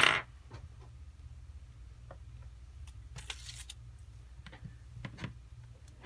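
Light clicks and taps of small-item handling on a workbench, with a short loud noisy burst right at the start, a brief hiss about three seconds in and two sharper clicks about five seconds in, over a steady low hum.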